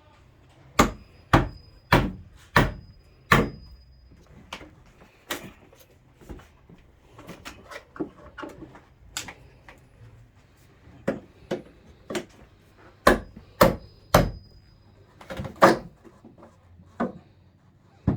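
Wood being struck over and over while old wooden basement stairs are demolished: about twenty sharp, uneven blows with smaller knocks between them. Several blows leave a brief high metallic ring.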